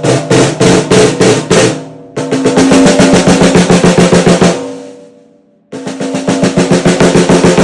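A 14 x 6.25-inch whiskey barrel oak stave snare drum with the snares engaged, struck near the outside edge of the head: a run of single strokes, then two fast rolls, each ringing out with the snare wires buzzing. The crisp snare response at the edge shows good snare engagement.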